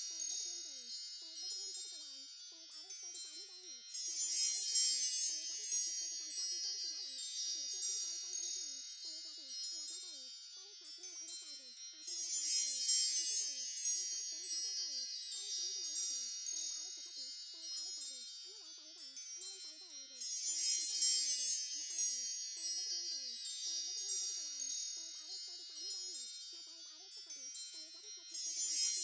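Wind chimes tinkling continuously as a looped background track, the ringing swelling up about every eight seconds.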